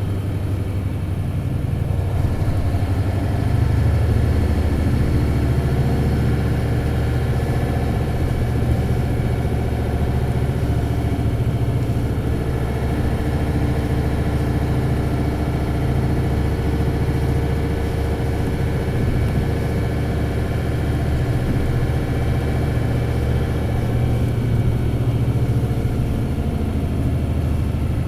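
Isuzu 8PE1-S V8 diesel engine of an Isuzu Cubic KC-LV280L city bus running under way, heard from inside the bus. The engine note climbs a couple of seconds in, holds fairly steady, and changes again near the end.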